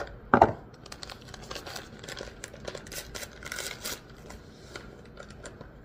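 Paper packet of jello mix being torn open and crinkled as the powder is shaken out into a glass mixing bowl, with a sharp thump about half a second in.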